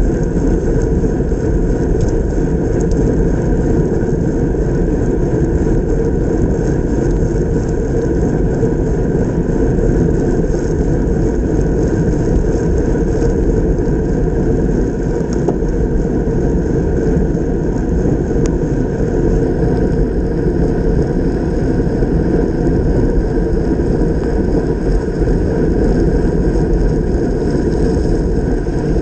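Steady wind rush and road rumble on a camera fixed to a road bike ridden fast over wet asphalt.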